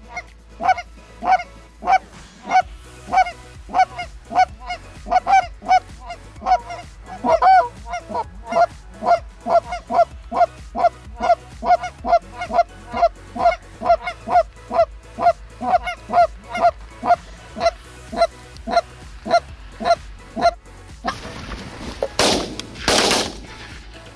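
Canada goose honking in a steady, rapid series, about two to three honks a second, which stops a few seconds before the end. Then come two loud shotgun blasts close together.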